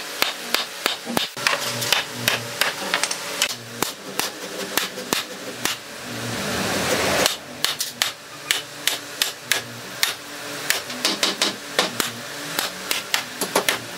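Hammer knocking on a hardwood door frame, repeated sharp blows several a second, driving the frame's joints together. A rush of noise swells from about five seconds in and cuts off suddenly a couple of seconds later.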